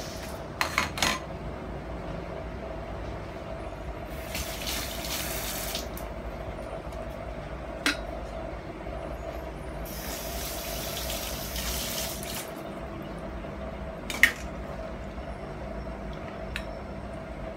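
Water running in two bursts of about two seconds each, with a few sharp clinks and a steady hum underneath.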